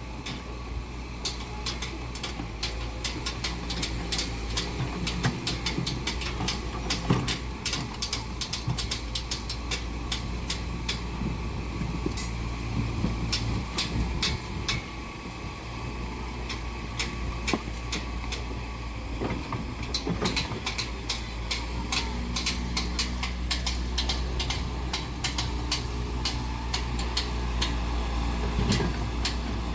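Diesel engine of heavy construction machinery running steadily, with frequent metallic clicks and clanks over it.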